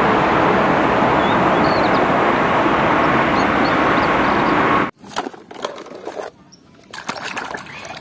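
Steady hiss of a water spray washing mud off a toy, cutting off suddenly about five seconds in; then quieter dripping and small knocks.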